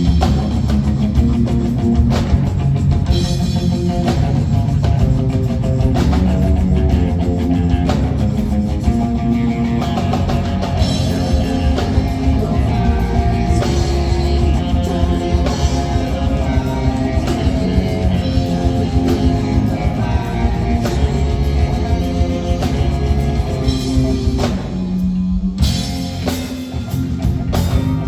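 Live rock song played by a band with guitar and drum kit, loud and continuous, the cymbal-bright top briefly dropping out about 25 seconds in.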